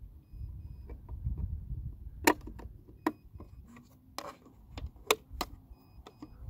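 Plastic battery-compartment door on an Orion StarBlast AutoTracker mount being pushed shut and latched by hand: a string of sharp plastic clicks and taps, the loudest about two seconds in, over a low rumble.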